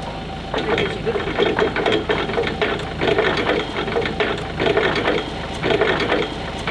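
Forklift forks being kicked along the carriage bar, the steel fork hooks scraping and clanking in about six short bursts. A steady low engine hum runs underneath.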